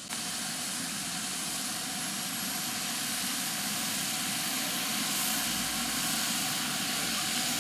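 Small gas turbine of a scale EC-145 model helicopter running with its rotors turning on the ground: a steady rushing noise with a thin, very high whine that slowly rises in pitch, the whole sound growing gradually louder.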